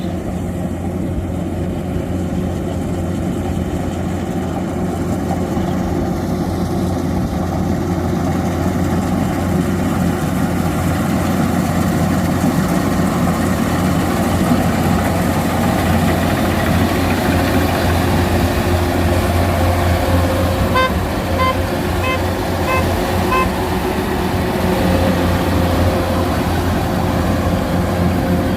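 Kubota rice combine harvester's diesel engine running steadily under load. About three-quarters of the way through comes a quick run of five or six short, high beeps, about two a second.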